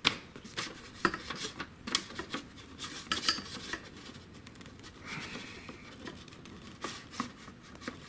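Hard plastic clicking and rubbing from an MC4 solar cable connector being handled and its cap nut run up onto the housing. A sharp click right at the start and another about a second in, then lighter clicks and rubbing.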